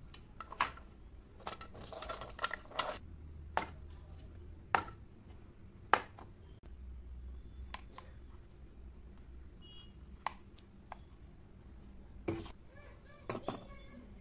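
Handling of miniature plastic toy dustbins and dollhouse furniture: irregular sharp clicks and light knocks as small lids are flipped and pieces are picked up and set down, bunched near the start and again near the end.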